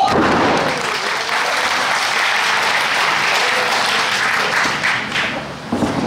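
Audience applauding steadily in a hall.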